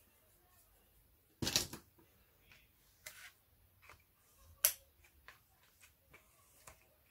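Cardstock pop-up photo frame being handled and pressed by hand: a brief rustle of card about a second and a half in, a few soft rubs and ticks, and one sharp click a little past the middle.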